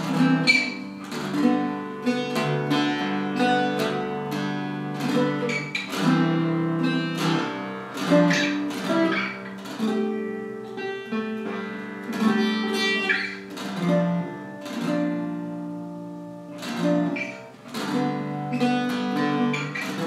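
Handmade carved-top F-style mandocello, four paired steel-string courses, played with a pick. It is a steady run of strummed chords and picked notes, sitting low in pitch, that ring on between strokes.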